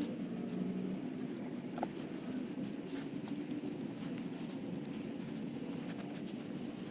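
Scratching and rustling of hands digging through loose soil in a fabric grow bag to pull out sweet potatoes, with a few small clicks, over a steady low hum.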